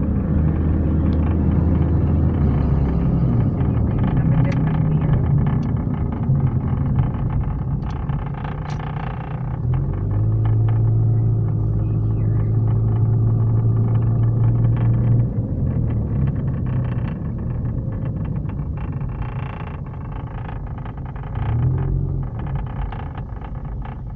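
Car engine and road noise from inside the cabin of a slowly moving car, the engine hum shifting up and down in pitch as the car speeds up and slows.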